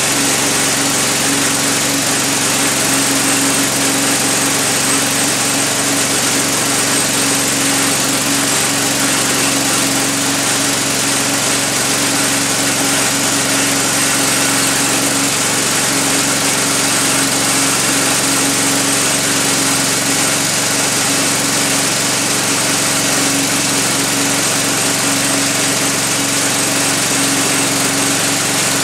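1985 Wood-Mizer LT-30 band sawmill running steadily, its air-cooled engine held at speed as the sawhead feeds along a squared log. A constant engine drone with one strong hum, unchanging throughout.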